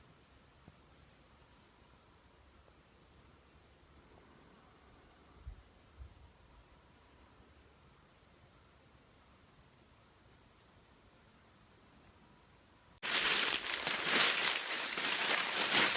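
Steady high-pitched insect buzz with a slight pulse, which stops abruptly near the end. Footsteps then crunch loudly and irregularly through dry fallen leaves on the trail.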